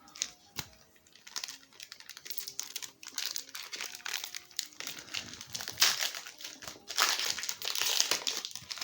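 Foil trading card booster pack wrapper crinkling and crackling as it is handled and torn open, in loud irregular bursts that peak near the end.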